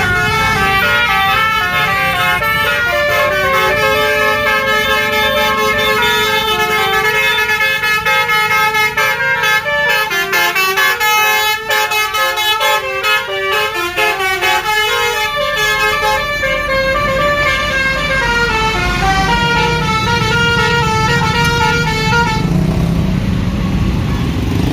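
Bus telolet horn of the Basuri type playing a melody: several horn tones sounding together and jumping from note to note. It stops about three-quarters of the way through, leaving a low engine and traffic rumble.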